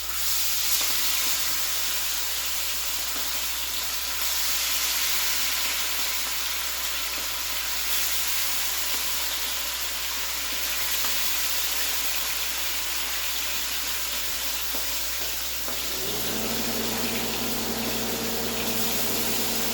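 Pieces of deer heart sizzling in hot frying oil, a steady dense sizzle. A steady low hum joins about sixteen seconds in.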